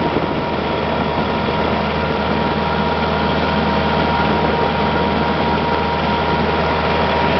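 Snow-plowing vehicle's engine running steadily, with no change in speed and a steady high tone over the hum.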